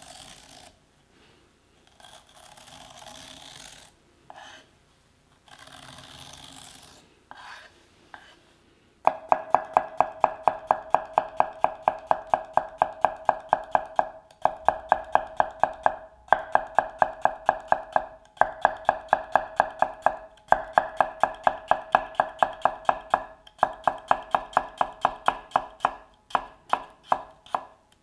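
A metal spoon scraping the seeds out of halved cucumbers in a few strokes, then, from about nine seconds in, a kitchen knife slicing a cucumber thinly on a ginkgo-wood cutting board. The slicing is a fast, even run of knocks, about three or four a second, each with a short ring, in runs with brief pauses.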